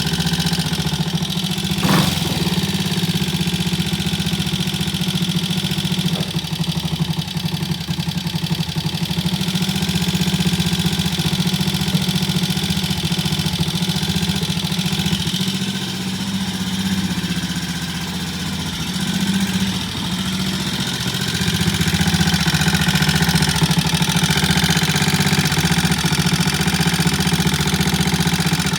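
Triumph T20M motorcycle's single-cylinder engine running steadily, with one sharp click about two seconds in; it eases off a little past the middle and picks back up near the end.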